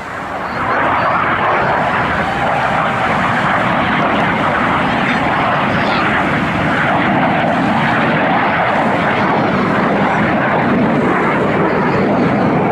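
Aircraft engine noise from a display plane flying over, loud and steady, swelling up about half a second in.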